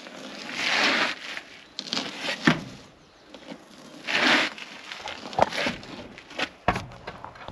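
Large muck-spreader wheel being shoved and shifted into place by hand: two long scraping, crunching swells about three seconds apart, with a few sharp knocks in between.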